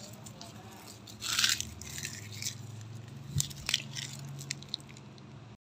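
Faint handling noises: a short rustle about a second in and a few light clicks later, over a low steady hum.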